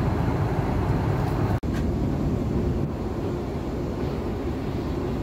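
Steady low rumble of airliner cabin noise aboard an Airbus A330-200. The sound cuts out for an instant about one and a half seconds in, and it is a little quieter from about three seconds in.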